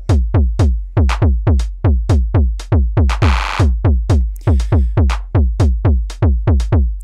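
Eurorack drum pattern from a Constellation trigger sequencer: an SSF Entity analog kick drum plays an irregular, syncopated rhythm of about three to four hits a second, each hit dropping in pitch. A little past the middle comes a short trill of 909-sampled claps from the ratcheted clap pattern, with the newly unmuted closed hi-hat joining in.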